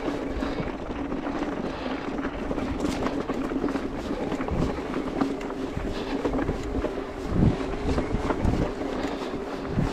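Specialized Turbo Levo electric mountain bike coasting down a rocky trail: a steady whir from the drivetrain, with rattles and low thumps as the tyres roll over stones, the loudest about seven and a half seconds in and near the end, and wind on the microphone.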